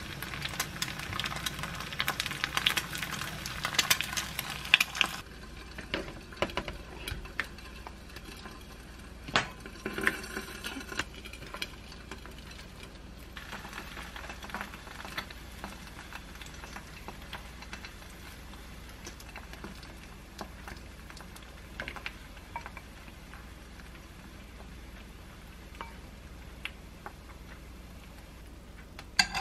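An egg frying in a pan, a dense crackling sizzle that cuts off suddenly about five seconds in. After it come quieter scattered light clicks and rustles of food being placed in a bowl.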